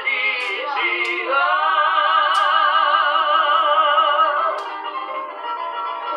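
A woman sings a long held note with wide vibrato to a strummed acoustic guitar, after a short sung phrase shared with a man's voice. Near the end the singing stops and the guitar plays on alone, a little quieter.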